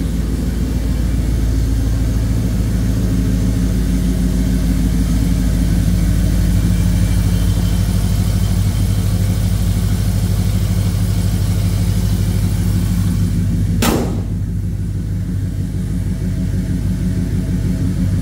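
LS V8 idling steadily through shorty headers, 3-inch stainless exhaust and two Flowmaster Super 44 mufflers, after a cold start. A sharp click about fourteen seconds in, after which the engine is a little quieter.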